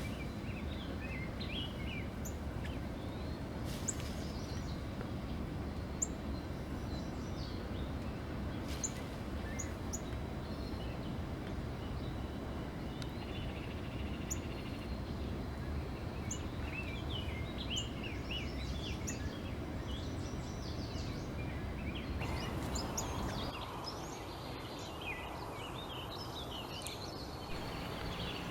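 Northern cardinal calling: short, sharp chip notes and chirps coming in scattered clusters, busiest near the end, over a steady low background rumble.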